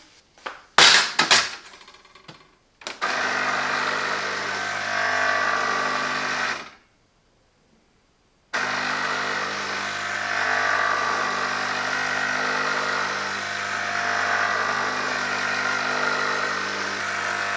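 Espresso machine's 15-bar pump starting up and running with a steady buzzing hum on its first trial run, before water has first come through. A few sharp clicks come before it, and the hum drops out for about two seconds midway.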